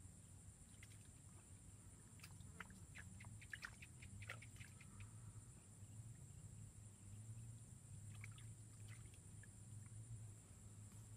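Near silence: faint outdoor pond-side ambience. A steady thin high-pitched drone runs throughout, with scattered faint chirps and ticks, most of them in the first half and a few more past the middle.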